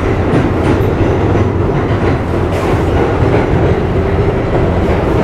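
Loud, steady rumble of a New York City subway car running along the track, heard from inside the car, with a continuous motor hum and faint clicking of the wheels.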